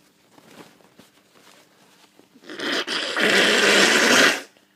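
A person with a developing cold blowing their nose hard, a long noisy blast that starts about two and a half seconds in, grows louder and stops after about two seconds.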